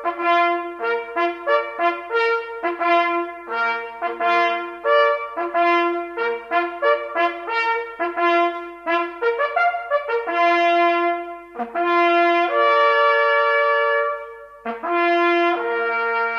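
Music: a solo brass instrument playing a fanfare of quick short notes on a few pitches, moving into longer held notes in the last few seconds.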